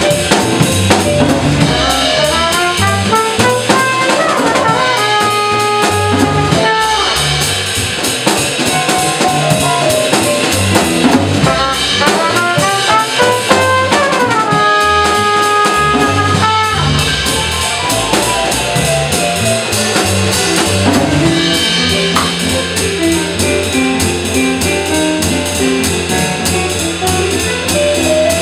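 Small jazz combo playing in a swing feel: a trumpet solos in quick up-and-down runs and a few held notes over upright bass, drum kit and digital stage piano. About three quarters of the way through the trumpet line stops and the piano and rhythm section carry on.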